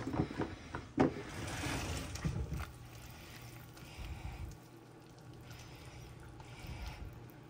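A silicone spoon stirring thick, chunky vegetable-beef soup in a ceramic slow-cooker crock: soft wet squishing and scraping. There are a couple of sharp knocks in the first second or so, the loudest about a second in.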